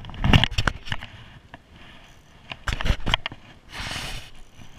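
Handling noise close to the microphone: irregular knocks and scrapes, loudest just after the start and again about three seconds in, then a short rustling hiss about four seconds in.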